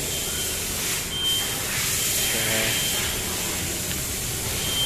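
Suzuki Multicab's K6A 660 cc three-cylinder engine idling steadily, just started after a transmission oil change. A thin high beeping tone comes and goes several times over it.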